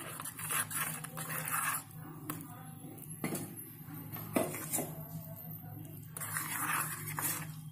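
Metal spoon stirring and beating thin semolina batter in a bowl: scraping, with a few sharp clinks against the bowl. A little water is poured in near the start.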